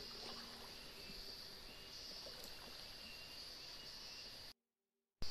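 Forest stream-side ambience: insects buzzing in a steady high drone over a soft hiss, with a few short chirps and faint clicks. It cuts to dead silence about four and a half seconds in.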